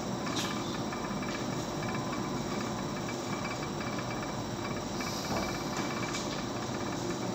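Laboratory stirrer running steadily during a dissolution test: an even hiss with a faint steady hum.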